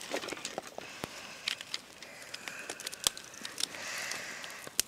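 Scattered small clicks, taps and rustles of cooking gear and packaging being handled as rice is got ready for cooking, with a cluster of sharper clicks near the end.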